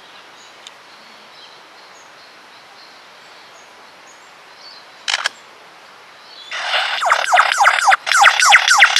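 Lyrebird calling at close range. After a short sharp rasp about five seconds in, it launches into a loud, fast run of downward-sweeping whistled notes, about six a second.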